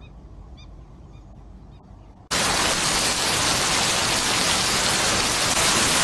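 Heavy rain pouring down: a loud, steady hiss that begins abruptly about two seconds in. Before it there is only a quiet outdoor background.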